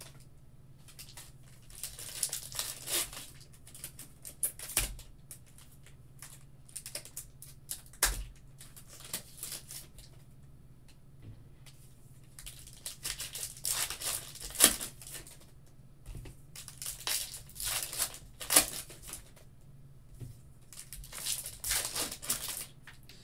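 Foil trading-card packs being torn open and crinkled by hand, in repeated bursts of crackling a second or two long with quieter gaps between, and cards handled and laid down on a table. A faint steady low hum runs underneath.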